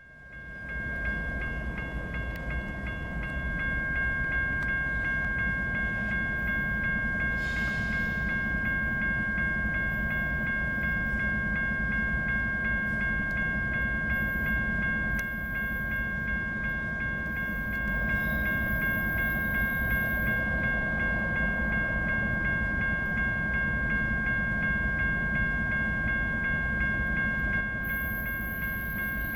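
Freight train rumbling on the rails, with a steady high whine of several tones held throughout.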